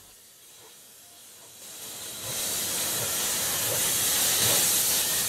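Steam hissing from an Andrew Barclay fireless steam locomotive. The hiss comes in about one and a half seconds in, builds over half a second, then holds steady.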